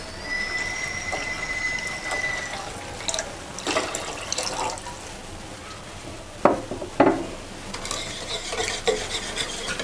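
Milk pouring in a thin stream into a bowl of beaten egg yolks and butter. Two sharp knocks follow, and near the end a wire whisk starts stirring, clicking against the bowl.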